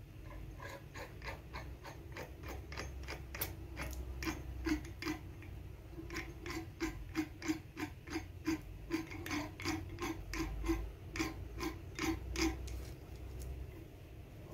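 Rebuilt Peugeot 206 oil pump being turned over for its test: a regular mechanical ratcheting click, about three to four a second, that stops near the end.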